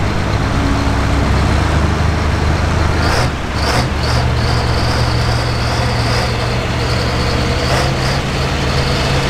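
Farm stock tractor's diesel engine running hard under load while pulling the sled. It dips briefly about three seconds in with a few short hissing puffs, then carries on at a higher, steady pitch.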